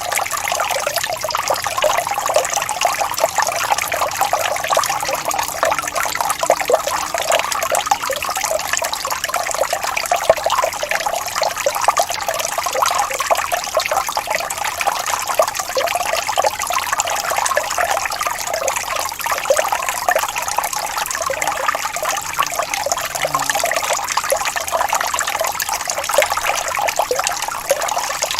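Small waterfall: water splashing and trickling steadily over rocks, an even, bright rushing with fine irregular splashes.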